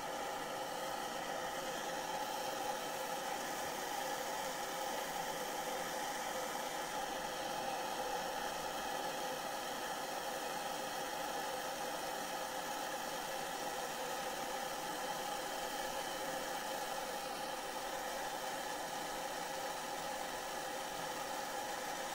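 Handheld gas blowtorch burning with a steady hiss, its flame heating a dish of brass chips to temper a steel clock click spring.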